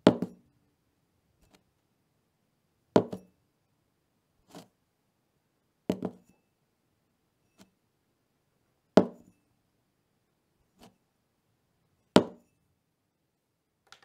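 Drinking glass set down on a wooden table, five firm clunks about every three seconds, some with a quick second knock as it settles. Fainter taps fall between them.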